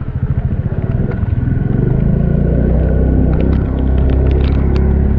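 Motor scooter's small engine running under way on a dirt track, a low rumble that settles into an even drone about two seconds in. Scattered light ticks come near the end.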